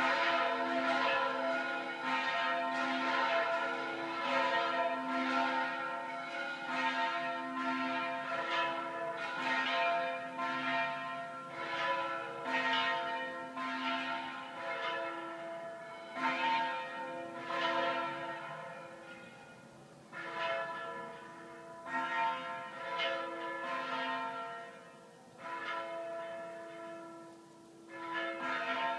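Church bells pealing: several bells of different pitch struck in quick, overlapping succession, each stroke ringing on. The strikes thin out over the last third, with the sound dying down between them.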